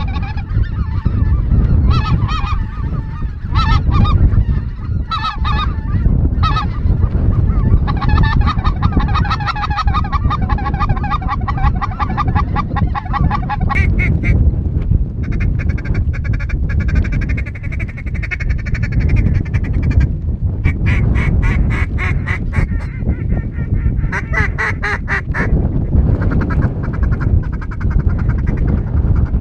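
Ducks and geese calling, repeated quacks and honks in runs of quick pulses, with a long unbroken bout of calling about eight seconds in, over a steady low rumble.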